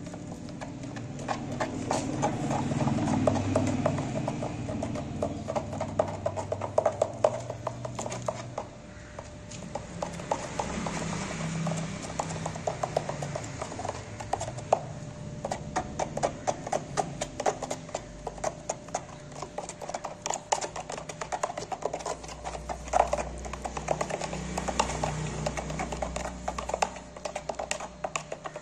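A metal utensil stirring and scraping dry powders in a plastic tub, knocking and clicking irregularly against the tub's sides, over a low steady hum.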